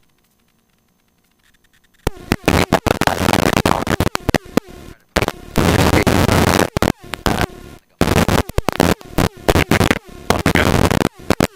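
Rough, crackling rushing noise from wind and helicopter noise hitting the microphone, cutting in and out abruptly. It starts about two seconds in after near silence.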